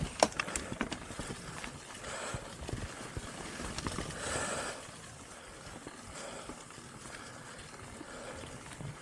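Mountain bike riding over a dirt forest trail: tyre noise with knocks and rattles of the bike over bumps, sharpest in the first second, a brief hiss of breath about halfway, and quieter rolling after that.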